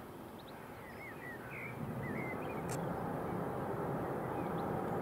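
Jet airliner's engines, a noisy rumble that grows steadily louder from about two seconds in as the aircraft draws nearer. A few short bird chirps come between one and two and a half seconds in.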